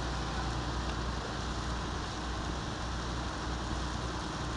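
Steady low rumble of a whale-watch boat's engine under a constant hiss of wind and sea.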